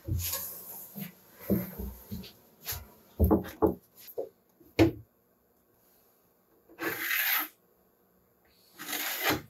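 Wooden boards being handled: irregular knocks with scraping and rubbing as wood slides over wood. There are two longer scrapes near the end.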